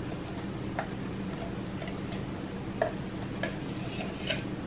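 A few light, scattered clicks and taps of a utensil against a measuring cup and a stainless steel bowl as canned pumpkin is scooped out, over a steady low hum.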